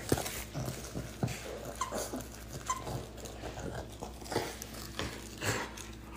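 French bulldog chewing and mauling a plush T-Rex toy: irregular chewing, scuffling and mouth noises, with two short squeaky notes about two and three seconds in.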